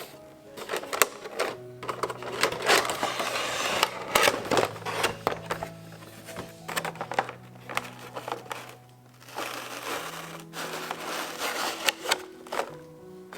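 Cardboard and plastic packaging of a Funko Pop box being handled and opened: rustling and scraping with many sharp clicks, over soft background music.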